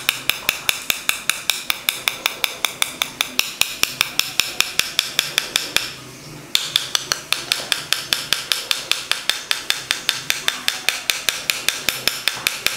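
Quick, even tapping of an artist's palette knife and brush against each other, about six taps a second, with a short break about six seconds in.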